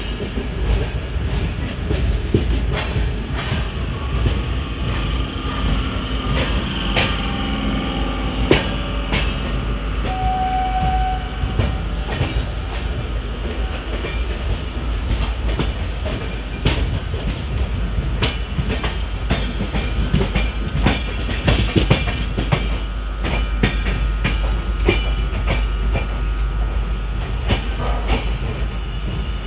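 Passenger train running out of a station, heard from an open coach doorway: a steady rumble of wheels on the track with frequent clicks and clacks over the rail joints. The clicks come more often in the second half as it gathers pace.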